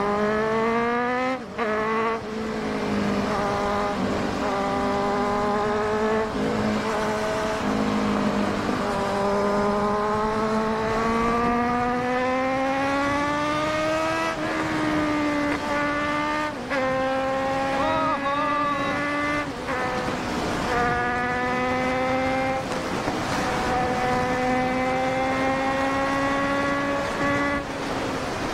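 Kawasaki Z900's inline-four engine running hard at highway speed, its note slowly climbing and then dipping briefly several times as the throttle is eased and reopened, with wind rushing past.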